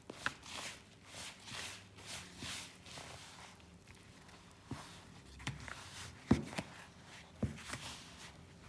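A hand squeezing and pressing crumbly wheat-flour dough in a plastic bowl as water is worked in: soft, irregular scrunching strokes about twice a second, with a few sharper taps against the bowl.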